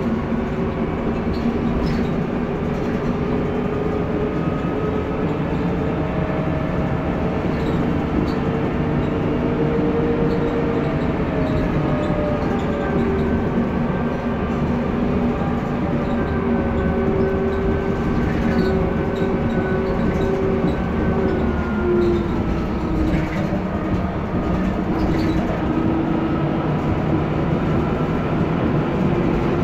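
Mercedes-Benz O405G articulated bus's diesel engine running under way. Its note climbs, drops about eleven seconds in, climbs again and falls back around twenty-two seconds, as the bus accelerates and slows.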